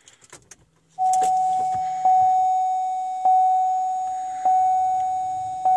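2008 Pontiac Grand Prix GXP's dashboard warning chime sounding as the ignition is switched on: a steady single-pitched chime that starts about a second in and is struck again about every 1.2 seconds, five times in all, each fading slightly. A few light clicks come just before it, from the key being turned.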